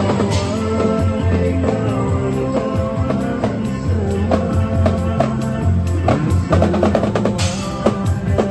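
Upbeat music with a sustained melody and bass line over a busy drum-kit beat of quick snare and tom hits. Cymbal crashes come near the start and again near the end.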